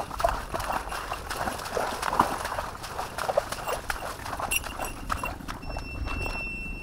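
Footsteps and rustling as someone walks through grass and lotus plants: irregular crackles and clicks of stems and leaves. A steady high tone starts near the end.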